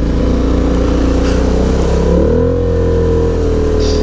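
ATV engine running under load while riding, in high range, its pitch rising a little about two seconds in.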